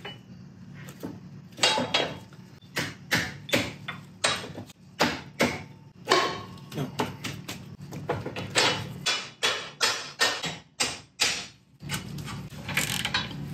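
An irregular run of sharp metal clanks and knocks, about two dozen, as bolts and the painted front axle support of a Ford 861 diesel tractor are handled and fitted into place, over a faint low hum.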